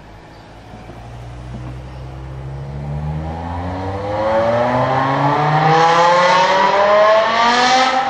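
BMW M5 E60's 5.0-litre S85 V10 starts at a low, steady note, then accelerates hard from about three seconds in, its revs climbing steadily and getting louder, and lifts off near the end. It is heard inside a tunnel.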